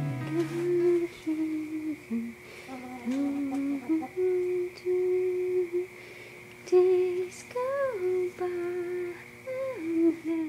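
A woman humming a slow wordless tune in held notes, with small slides in pitch between them.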